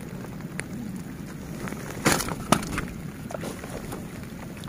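Wind rushing on the microphone, broken about two seconds in by two short, loud handling noises half a second apart as hands work a fishing net and let it back into the water.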